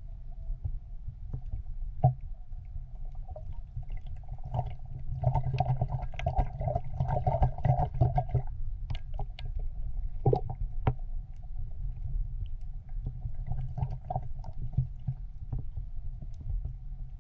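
Muffled underwater sound picked up by a submerged camera: a steady low water rumble with a faint hum and scattered sharp clicks and crackles. The clicks grow busier from about five to eight and a half seconds in.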